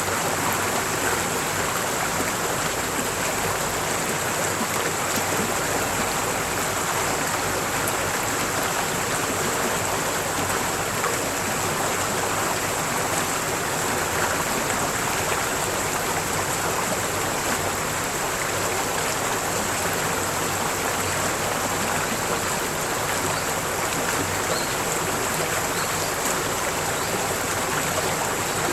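Mountain valley stream flowing: a steady, even rush of running water.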